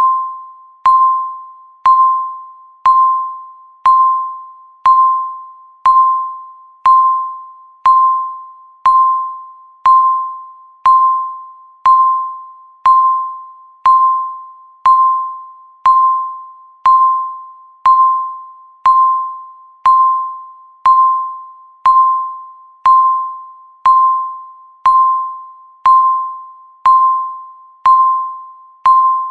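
Countdown timer beeping once every second: a single tone of about 1 kHz with a sharp attack that fades away before the next beep.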